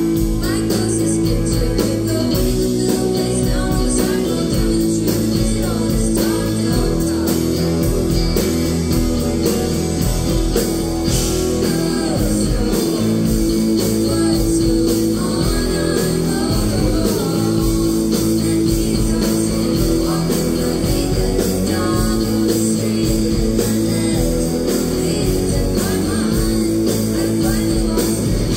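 Live indie rock band playing a song: electric guitar, electric bass and drums, with women singing.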